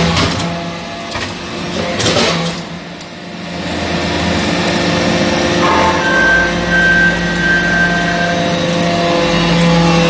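Hydraulic metal-chip briquetting press running: a steady machine hum with a sharp knock about two seconds in, and a high whine that comes in for about two seconds past the middle.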